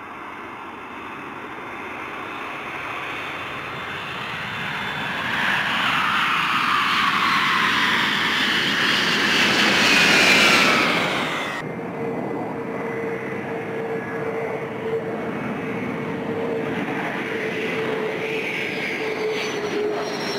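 E-3 Sentry AWACS jet landing: its four jet engines grow louder with a whine that falls in pitch as it passes, loudest about ten seconds in. It then cuts abruptly to an EA-6B Prowler's jet engines running with a steady whine as it rolls down the runway.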